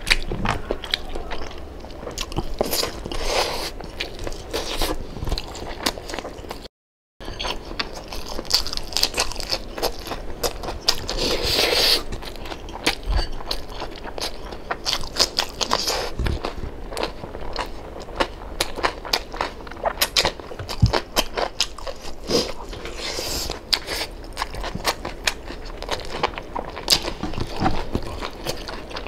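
Close-miked eating: biting into and chewing crispy pata (deep-fried pork knuckle), with crunching of the crackling skin and wet chewing clicks. A brief dropout to silence about seven seconds in.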